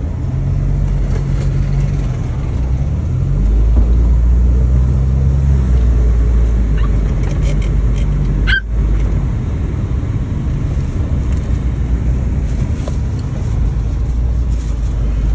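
Car engine and road noise heard from inside the cabin while driving, a low steady rumble that grows louder about four seconds in and drops out briefly just past the middle.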